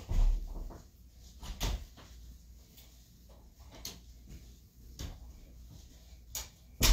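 Several knocks and thumps in a room. A door is opened and shut partway through. The loudest thuds come just after the start and at the very end.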